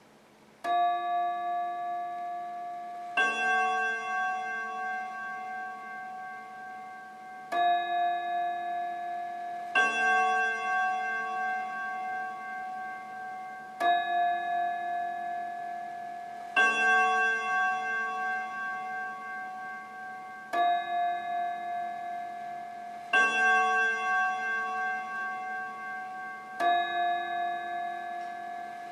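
Soviet-made Jantar wall clock striking twelve: slow pairs of two different ringing notes, ding-dong, each note left to ring out. About four and a half pairs fall here, with a new pair roughly every six and a half seconds.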